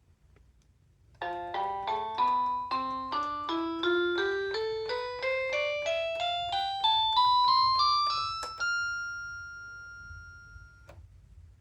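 SmartAngel kids' electronic keyboard sounding a rising run of about twenty notes, about three a second, climbing steadily from low to high. It ends on a held high note that cuts off suddenly about two seconds later.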